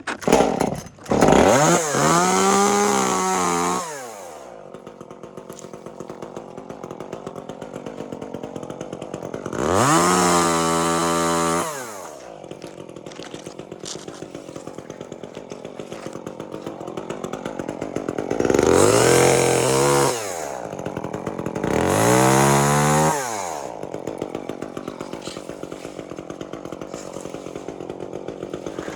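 Chainsaw revved up four times, each rev rising and then falling in pitch, and idling with an even pulse between revs.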